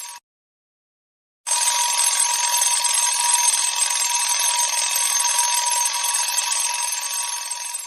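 Alarm clock bell ringing in long continuous rings. A ring cuts off just at the start, and after a little over a second of silence the ringing starts again about a second and a half in and runs on steadily.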